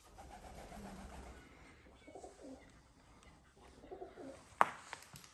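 Pigeons cooing in a few short, low phrases, with one sharp knock about four and a half seconds in.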